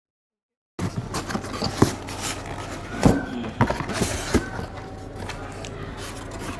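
Cardboard box packaging being handled: rustling and scraping as a white foam insert is pulled out, with scattered sharp clicks and knocks. It starts suddenly about a second in after dead silence.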